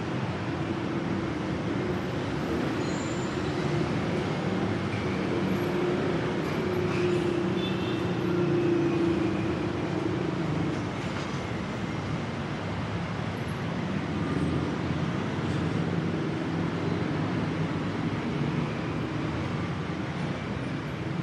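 Steady rumble of passing vehicles. It swells twice, once in the first half and again a little after the middle.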